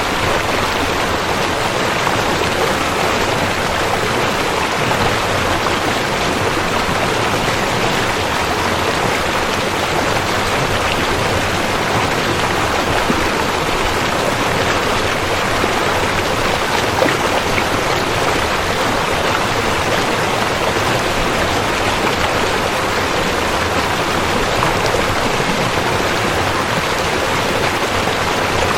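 River water flowing steadily: a continuous, even rush of moving water.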